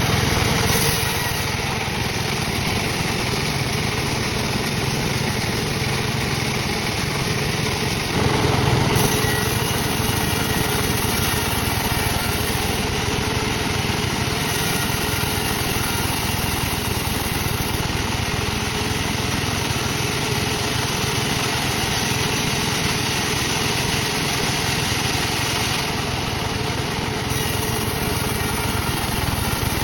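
Sawmill saw machinery running steadily while sawing teak, with a louder swell about eight seconds in.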